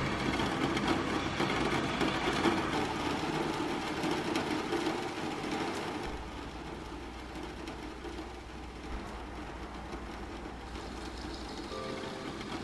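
Steady rain, a dense even hiss with a low rumble under it, heavier for about the first six seconds and softer after that.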